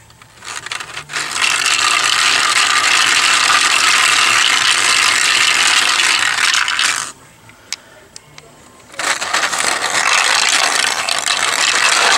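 Balls rattling and clattering through a 3D-printed plastic marble maze as its top knob is turned by hand, driving the Archimedes screw that lifts them. The clatter stops for about two seconds midway, leaving a few lone clicks, then starts again.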